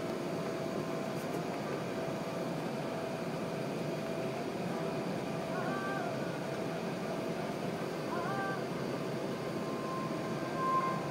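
Steady cabin rumble inside an Airbus A380-861 taxiing on the ground after landing, heard from a window seat over the wing, its Engine Alliance GP7200 engines at taxi power. Twice, about six and eight seconds in, a short high tone steps upward, and a brief louder tone sounds near the end.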